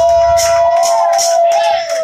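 A woman singing one long held high note that slides down at the end, over a steady beat of shaken percussion.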